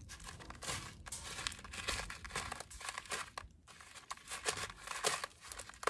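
Pine cone coated in peanut butter being rolled through loose birdseed on a paper plate: an irregular dry rustling and scratching of seed grains.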